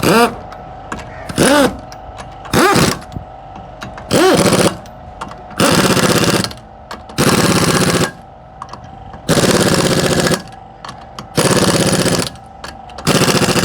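Impact wrench firing in about nine short bursts of rapid hammering, each a second or less, some with the tool's whine rising and falling as it spins up and down.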